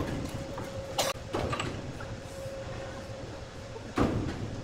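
Steady hum and rumble of sawmill machinery, with two sharp knocks, one about a second in and one near the end.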